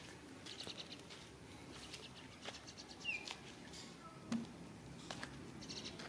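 Faint bird chirps: a short high chirp and a couple of quick high trills, over light scattered clicks.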